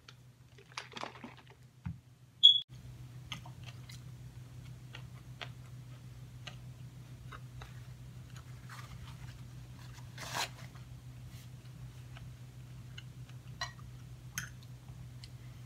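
Quiet eating sounds: a metal fork clicking and scraping in a ceramic bowl of leafy salad, with chewing, over a low steady hum. In the first two seconds the plastic cup of a personal blender is lifted off its base, and a sharp click comes about two and a half seconds in.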